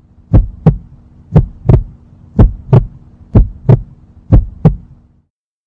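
Heartbeat sound effect: five double thumps, lub-dub, about one a second over a steady low hum, with both stopping shortly before the end.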